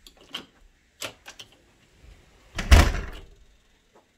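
A few light clicks, then a door being shut with a thud about two and a half seconds in, the loudest sound here.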